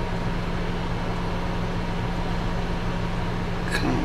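Steady low hum inside a car's cabin, with one short click near the end.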